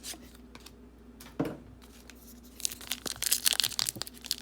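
Football card pack wrapper being torn open, crinkling and tearing from about two and a half seconds in, after a few light clicks and a single knock.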